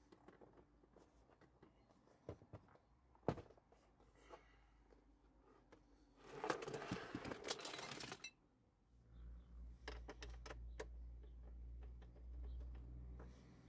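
Plastic glove box of a Hyundai Santa Fe being opened and taken out: scattered sharp plastic clicks, the loudest about three seconds in, a rattle of loose contents for about two seconds from about six seconds in, then a low rumble with a few more clicks as the box is pulled free.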